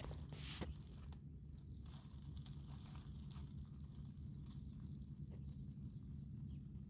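A tortoise moving among dry leaf litter: a few faint crackles and clicks of leaves over a steady low hum.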